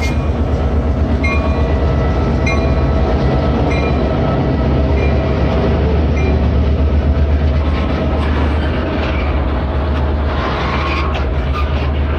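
Norfolk Southern GP38-2 locomotive passing close by, its EMD 16-cylinder two-stroke diesel making a deep pulsing rumble, while a bell rings about once a second for the first six seconds. Covered hopper cars then roll past, their wheels clicking over the rail.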